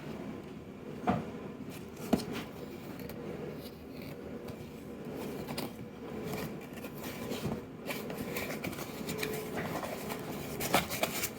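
Handling noise: light scraping and rustling, with two sharp clicks about one and two seconds in and a few more clicks near the end.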